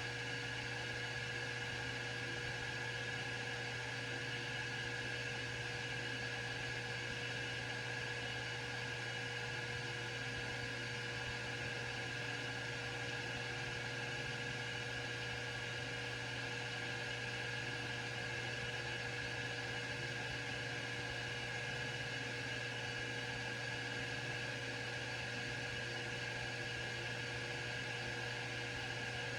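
Grizzly G0776 metal lathe running steadily with its spindle at about 1,000 RPM, a constant hum and whine that holds one pitch throughout.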